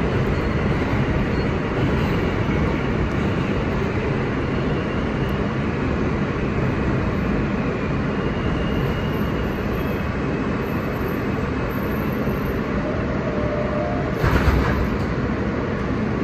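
An R160 subway train heard from inside the car as it slows into a station, a steady rumble of wheels on rail and running gear. A faint whine comes through in the middle, and a brief louder burst of noise sounds near the end as the train comes to a stop.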